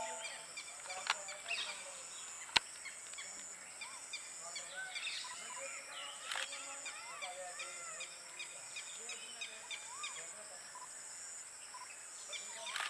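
Small birds chirping in many short, arching calls, busiest from about four to eleven seconds in, over a steady high-pitched hiss. One sharp click about two and a half seconds in.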